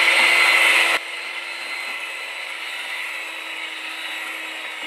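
Electric hand mixer with dough hooks running steadily in a stainless steel bowl, kneading a stiff bread dough, with a high motor whine. About a second in it drops suddenly in level and keeps running at the same pitch.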